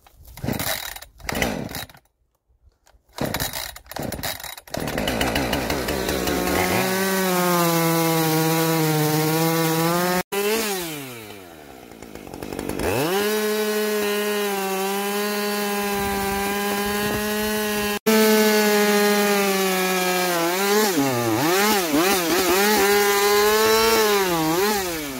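Two-stroke chainsaw bucking a birch log, running at a steady high throttle as the chain cuts through the wood. Its note drops away and comes back up about halfway, and near the end it surges up and down as the chain bogs and frees in the cut. A few short noises come before the saw settles into its steady run.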